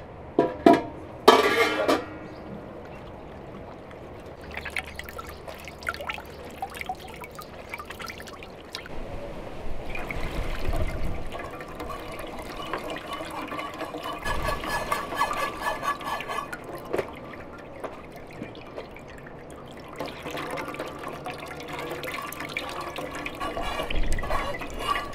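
Tomato juice pouring and splashing into a metal pot, with a few sharp clanks in the first two seconds. Later, tomato juice streams and trickles through a mesh sieve into an enamel basin.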